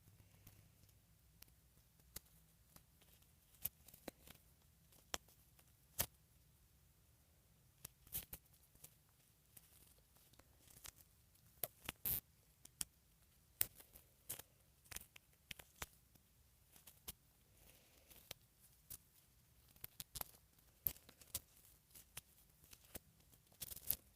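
Faint, scattered small clicks, taps and rustles of hands handling a doll and its clothes while dressing it.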